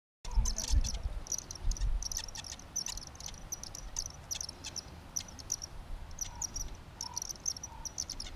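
Insects chirping in many short, high, irregular chirps, over a low rumble of outdoor noise.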